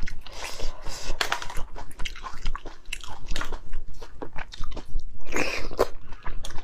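Close-miked eating sounds: wet chewing and mouth clicks while handling and eating a spicy braised egg. About five seconds in there is a louder bite into the egg.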